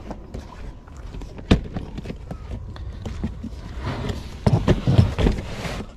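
Footsteps and handling knocks as a plastic folding storage box is carried and loaded into a car's trunk: scattered clicks, a sharp knock about one and a half seconds in, and a cluster of thuds near the end as the box is set down on the trunk mat.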